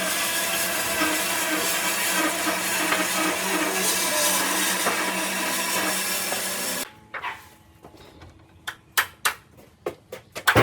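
A power tool running steadily, then cut off abruptly about seven seconds in, followed by a quick series of sharp knocks and taps, like wood pieces being handled and tapped on the bench.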